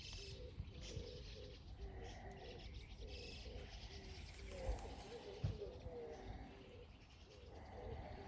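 Birds calling: a low, cooing note repeated about twice a second, with scattered higher chirps over it. There is one low thump about five and a half seconds in.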